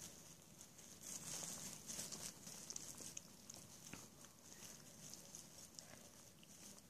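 Faint wet lapping and slurping of 26-day-old puppies eating gruel from a shallow dish, with small scattered clicks, a little louder for a second or so after the start.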